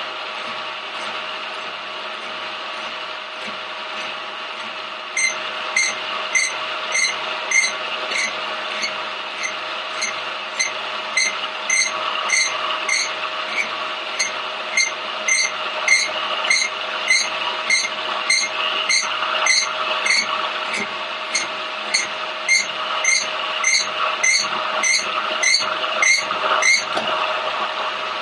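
Milling machine spindle running with a steady hum while a hand-fed boring bar cuts around the outside of an Ironhead cylinder head's exhaust spigot. From about five seconds in, the cutter meets the spigot with a short ringing tick about twice a second, stopping shortly before the end.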